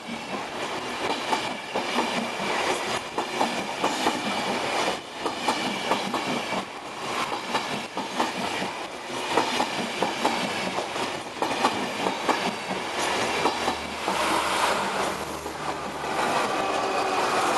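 Enterprise push-pull passenger train passing close at speed, its coach wheels clattering over the rail joints in a run of irregular clicks. Near the end the 201 Class diesel-electric locomotive pushing at the rear goes by, adding its engine's low hum and a rise in loudness.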